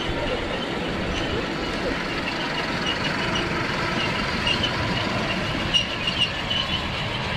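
Miniature ride-on park train, a small locomotive pulling loaded passenger cars along its narrow-gauge track, running past with a steady rolling rumble and a few sharp clicks about six seconds in.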